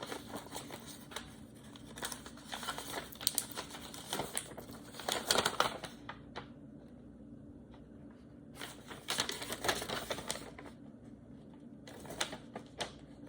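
Paper or packaging being handled, rustling and crinkling with light clicks, in three bouts: a long one at the start, another about nine seconds in, and a short one near the end. A faint steady low hum runs underneath.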